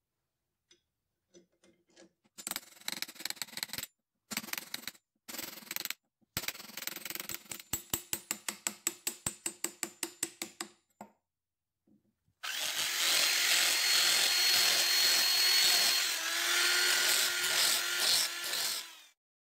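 Workshop hand work on a wooden tool handle: a few short scraping bursts, then a run of rapid, even strokes at about four or five a second. Then the loudest part, a hand-held power tool with a spinning disc grinding and shaping the wood, runs for about six seconds with a faint whine and stops just before the end.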